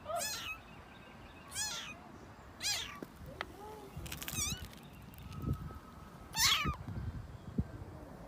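Cat meowing: a handful of short, high-pitched meows that drop in pitch, with a quick run of several about four seconds in and the loudest one near the end.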